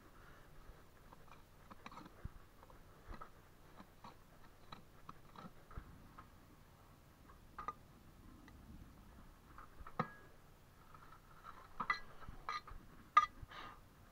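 Steel bricklaying trowel scraping and tapping mortar on brickwork, with bricks being handled: scattered clicks and short scrapes, the sharpest about ten seconds in and a cluster near the end.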